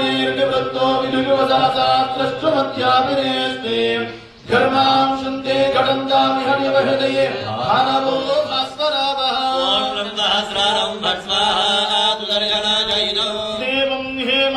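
Male priests chanting Sanskrit verses into microphones in a steady, melodic recitation, with a brief breath pause about four seconds in.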